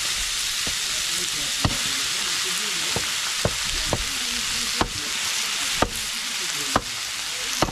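Food sizzling steadily in a hot pan, with sharp taps of a utensil against the pan about once a second as it is stirred.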